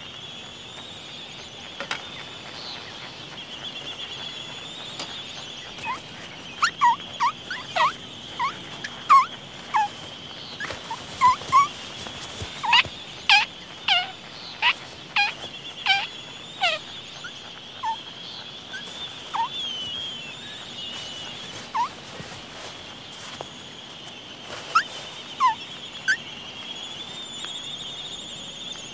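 Laysan albatrosses at the nest giving a run of short, squeaky calls, roughly one or two a second for about ten seconds, with a few more near the end. A steady high-pitched hum runs underneath.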